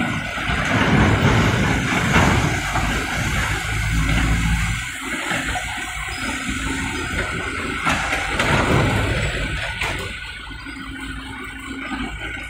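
Komatsu PC78US mini excavator's diesel engine working under load while it scoops old asphalt rubble, swelling louder twice as the machine digs, with a rushing, rattling noise over the engine.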